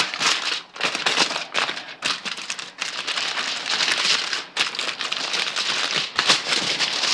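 Aluminium foil being folded and crumpled by hand as the sides of a foil packet are tucked in: irregular bursts of crinkling with short pauses between them.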